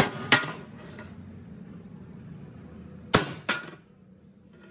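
Hammer blows on a steel plate lying on the ground, being worked for a tractor front blade. Two pairs of sharp metallic strikes, one at the start and one about three seconds in, each blow with a short clanging ring.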